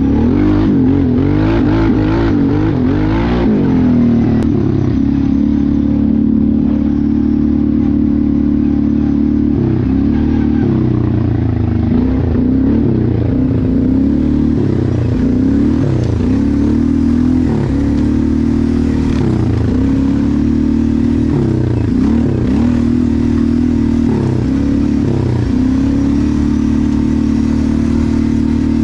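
ATV engine running continuously at fairly steady revs, the revs dipping and picking back up every couple of seconds as the throttle is eased and reopened.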